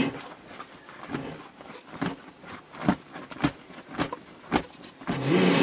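Feathers being pulled from a chicken by hand, a short sharp rip with each pull, roughly one a second. A voice starts near the end.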